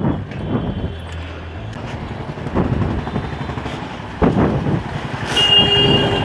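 Road traffic: vehicles running and passing, with a low engine hum and a few swells in loudness. A short steady tone sounds for about half a second near the end.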